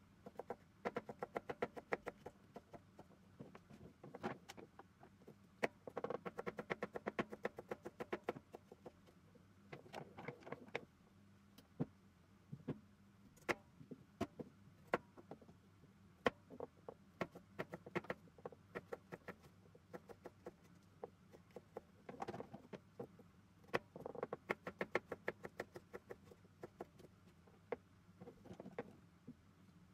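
Kitchen knife chopping a tomato on a cutting board: runs of rapid knife taps on the board, with sparser single taps between them.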